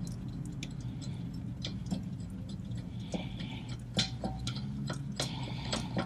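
Light metallic clicks and clinks, with a little scraping, as the rear brake caliper and its bracket are wiggled loose from the rotor by hand, over a steady low hum.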